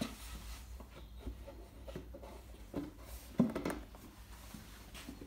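Plywood panels of a wheel arch box being handled and pressed together by hand: a few scattered light knocks and rubs of wood on wood, the loudest cluster about three and a half seconds in.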